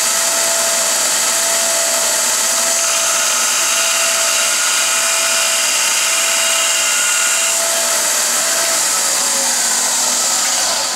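Small belt sander running with a soft-steel lathe threading tool, held in a jig, pressed against the belt to grind the second side of its 60-degree point. A steady grinding noise with a faint whine over it, easing off near the end.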